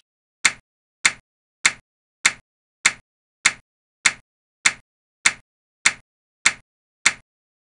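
Animation sound effect: a short, sharp tick repeating evenly about every 0.6 seconds, one tick per clock tick as the running process's tick counter counts up.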